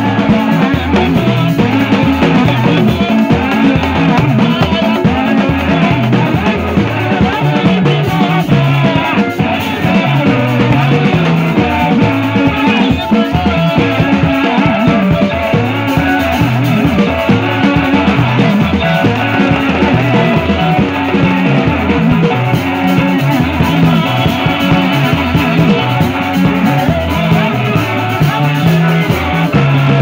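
Band music with drums: a row of three tall wooden hand drums struck with sticks, a drum kit, and a stepping bass line underneath.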